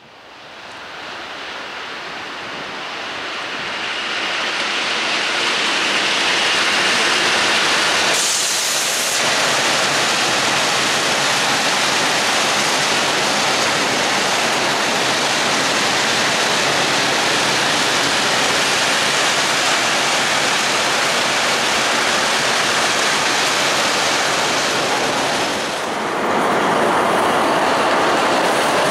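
Freight train of loaded hopper wagons rolling past: a steady rush and clatter of steel wheels on rails, fading in at the start, with a brief high hiss about eight seconds in. Near the end the noise dips briefly, then picks up again as a second freight train hauled by two electric locomotives passes.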